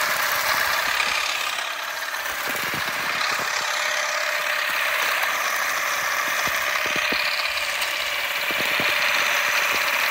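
Derentürk electric olive harvester, run off a tractor battery, running steadily as it beats the branches of an olive tree: a continuous mechanical whir with light knocks scattered through.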